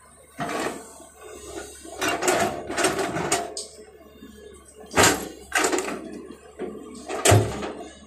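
L&T-Komatsu hydraulic excavator's bucket and linkage clanking and thudding as it unloads soil into a tipper truck and digs back into the pile. The knocks come in a cluster in the first half, then as single loud knocks, the loudest near the end.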